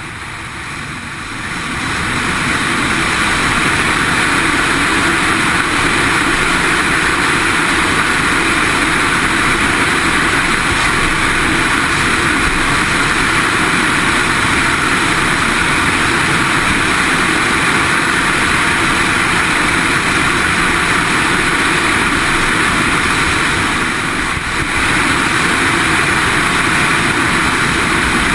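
Steady drone of an X8 flying wing's motor and propeller mixed with rushing air. It builds over the first two to three seconds, then holds level.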